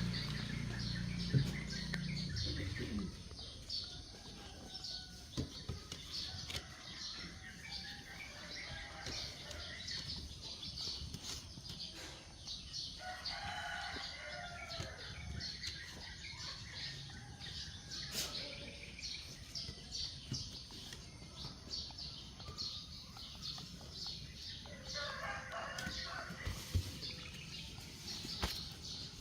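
Small birds chirping in quick short notes throughout, with a rooster crowing about halfway through and again near the end.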